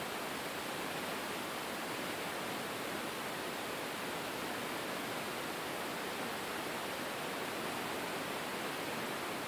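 Steady, even hiss of background noise with no distinct sounds standing out.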